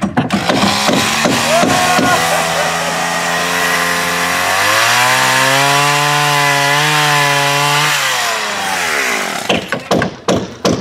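Two-stroke chainsaw running and cutting wood. Its pitch drops and holds lower for a few seconds as the chain bites, then rises again and dies away near the end. A few sharp knocks of wood being struck come around it.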